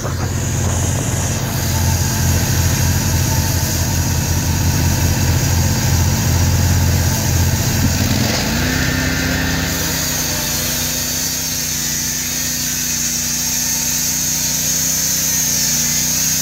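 Norwood portable bandsaw mill's gas engine running steadily, with wind buffeting the microphone. About eight seconds in, the engine speed rises and holds as the band blade saws through the log.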